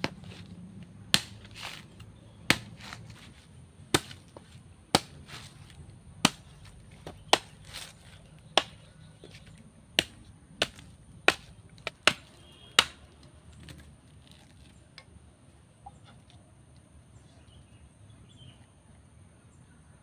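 Machete chopping into a coconut's husk, with about fourteen sharp strikes roughly a second apart. The strikes stop about thirteen seconds in.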